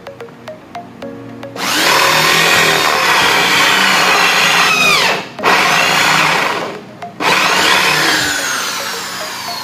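An electric power tool runs at full speed three times, stopping briefly twice near the middle. After the last run its motor winds down slowly, the pitch falling steadily. Light background music with a ticking beat plays before the tool starts.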